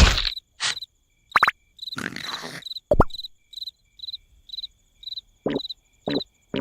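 Cricket chirping steadily as night ambience in a cartoon soundtrack, about two short high chirps a second. Several brief pitched cartoon sound effects, quick squeaks and blips, cut in over it.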